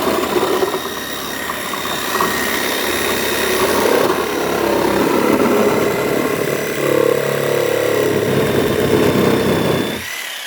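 Corded electric saw running as it cuts through the plastic body of a Power Wheels ride-on toy, with a steady high motor whine. It stops about ten seconds in, the whine falling briefly as the motor winds down.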